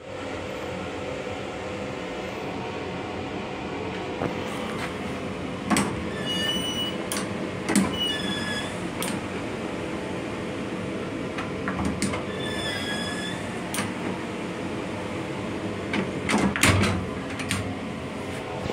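Long Island Rail Road M9 railcar running on the rails, a steady rumble heard inside its restroom. Sharp clicks and clunks come from the restroom door's lever latch and push-button lock, the loudest near the end as the door is locked. Two sets of short high tones sound in the middle.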